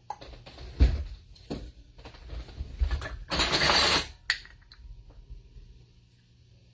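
Kitchen items being handled: two knocks about a second in, then a short, loud rattling scrape about three seconds in, with light clicks and handling after it.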